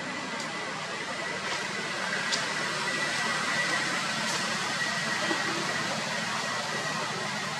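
Steady outdoor background hiss with a faint, thin high tone running through it and a few faint ticks; no monkey calls.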